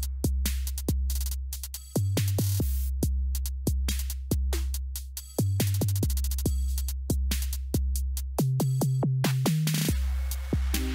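Electronic background music: a steady drum-machine beat over deep, held bass notes, the bass line stepping up higher for a moment about eight and a half seconds in.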